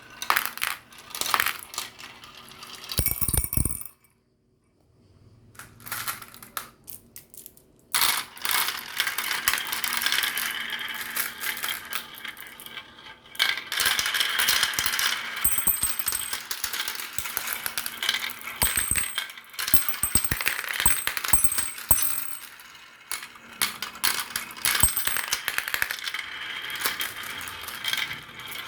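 Marbles rolling and clattering down a marble run track, many small clicks and rattles at once. After a lull of a few seconds near the start, a dense stream of clatter picks up about eight seconds in and keeps going.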